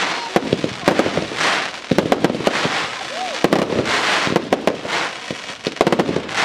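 Aerial firework shells bursting in quick succession: many sharp bangs, several followed by a spreading crackle from glittering effects.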